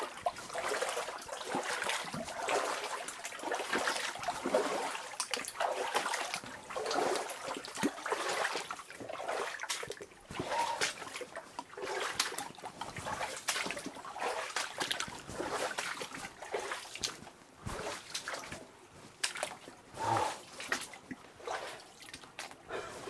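A person wading through water, splashing and sloshing with each step, roughly a splash a second at an uneven pace.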